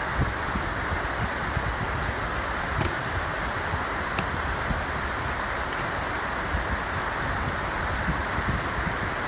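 Steady rushing of water over a weir, with wind buffeting the microphone in irregular low rumbles.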